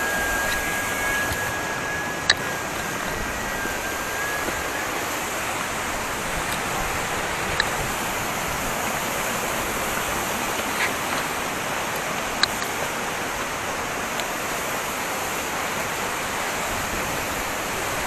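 A waterfall's steady rushing water, broken by a few sharp clicks.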